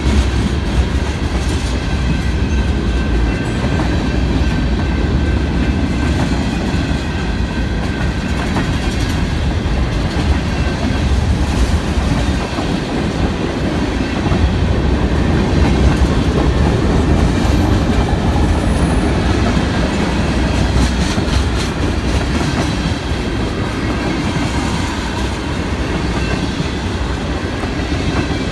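Freight train of tank cars and covered hoppers rolling past close by: a steady rumble of steel wheels on rail, with occasional clacks as the wheels cross rail joints.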